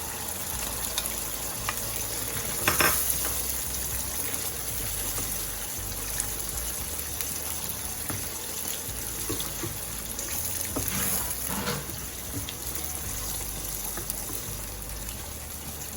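Tomato sauce simmering and sizzling steadily in a pan as peeled shrimp are added and stirred in, with a few short knocks of a utensil about three seconds in and again around eleven seconds.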